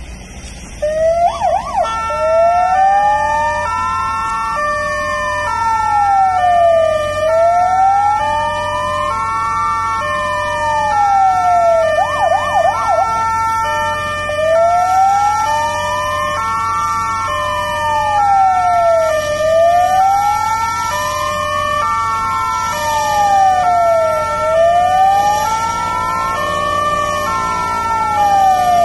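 Airport fire trucks' sirens sounding together: a slow wail rising and falling about every five seconds over a steady two-tone hi-lo siren, with short fast yelps about a second in and again around twelve seconds.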